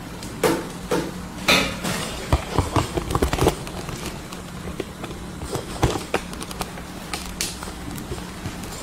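Irregular clicks and knocks of a hot air rework handpiece being handled and lifted out of its plastic cradle on the side of the rework station, heaviest in the first few seconds, over a steady low hum.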